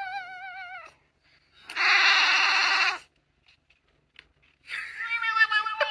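Cats meowing: a long, wavering kitten meow trails off in the first second, a harsh, rasping cry of about a second follows, and another meow starts near the end.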